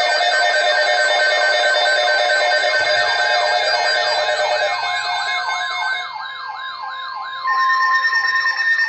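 Several electronic siren and alarm tones sound together at once: fast repeating rising sweeps, wavering warbles and steady held tones. About two-thirds of the way through part of the mix drops out and it goes quieter. Near the end a new steady tone comes in and it is loud again.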